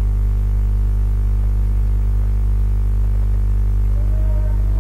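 Steady electrical mains hum, a low buzz with a row of overtones and no other sound. Near the end a faint wavering tone comes in over it.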